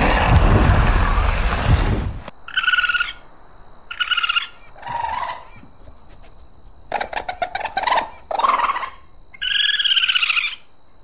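A loud, rough, noisy animal sound cuts off about two seconds in. It gives way to a turkey calling: short pitched yelps, rapid rattling gobbles around the middle, and a longer call near the end.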